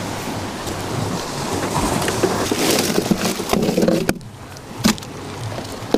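Steady wash of shoreline surf and wind noise on the microphone. About four seconds in it turns muffled, with a couple of sharp knocks, as the camera is handled against cloth.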